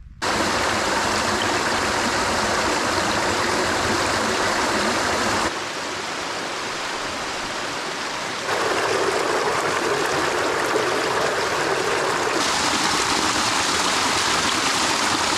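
Small forest stream splashing down over rocks in little cascades, a steady rush of water. The rush drops suddenly about five and a half seconds in and grows louder again about three seconds later.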